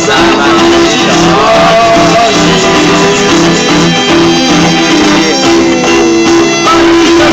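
Live street busking music: guitar playing under a melody line that slides between held notes, loud and close to the phone.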